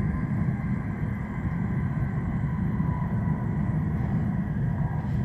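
Shinkansen bullet train running through a tunnel, heard from inside the passenger cabin: a steady, heavy low rumble with a faint steady high hum above it.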